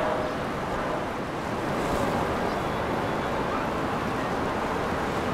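Steady rushing of river water, such as a passing boat's wake washing, with wind on the microphone.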